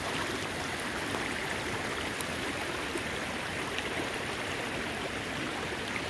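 Steady rushing of a stream, an even wash of running water with no change in level.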